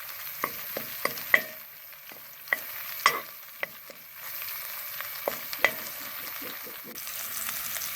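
Crushed garlic and rabbit pieces frying in sunflower oil in a pot, a steady sizzle, as the pot is stirred, with scattered sharp clicks and knocks.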